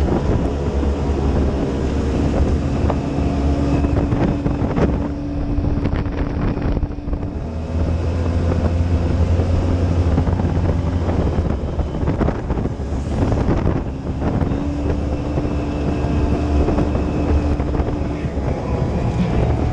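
Side-by-side UTV engine running at road speed, a steady drone whose pitch drops about a third of the way through and comes back up near two-thirds, with wind buffeting the microphone.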